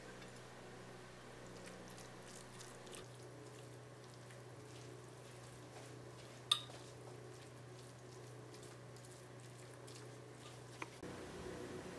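Two forks tossing sauced pulled pork in a ceramic baking dish: faint wet, scraping sounds of the meat being turned, with one sharp tap about six and a half seconds in, over a low steady hum.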